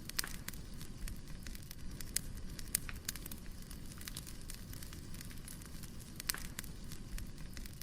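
Wood fire crackling: irregular sharp pops and snaps of burning firewood, a few louder than the rest, over a steady low rumble of the flames.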